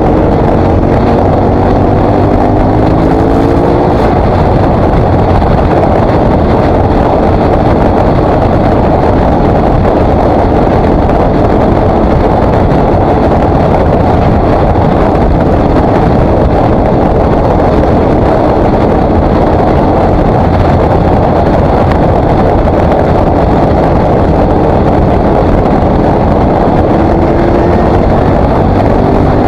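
KTM 950 SMR's V-twin engine running under way, with wind rushing over the microphone; the revs climb in the first few seconds and again near the end as the bike accelerates.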